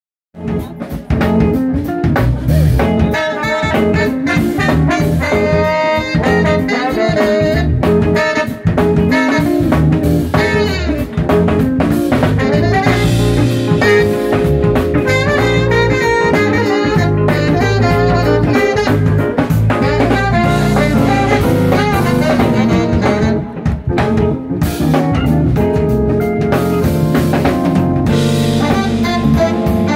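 A live band playing: trombone and saxophone over drum kit, keyboard and guitar.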